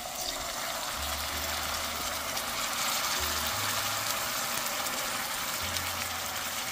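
Hot pan of browned ground beef and onion sizzling as canned chili beans in sauce are poured in; the sizzle swells as the liquid hits the pan and then holds steady.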